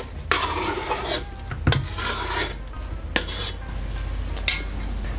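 Soft brioche dough being scraped out of a stainless-steel mixer bowl with a dough scraper into a plastic bowl: a series of rubbing, scraping strokes with a couple of light knocks.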